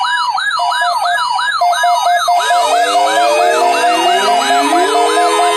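Several weather-alert radios sounding their alarms at once, set off by the NOAA Weather Radio weekly test signal. The alarms layer a fast wailing siren, a steady tone and a rapid beep of about four a second. From about two and a half seconds in, more siren tones glide up in pitch and join them.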